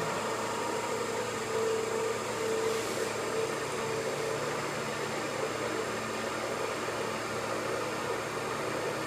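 Şahinler IMAT BC18 vacuum pug mill running: its electric drive and vacuum pump make a steady hum and hiss, with a humming tone that swells and fades during the first few seconds.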